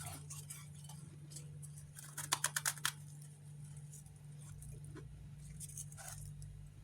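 Close-up crunching of refrozen freezer frost chunks being chewed, with scattered crackles and a quick run of about six sharp crunches a little past the middle. A steady low hum sits underneath.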